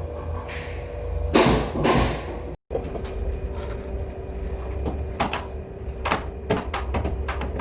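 Pneumatic nail gun firing a quick run of sharp shots into the ceiling framing in the second half, over a steady low hum; two louder, longer noisy bursts come about a second and a half in.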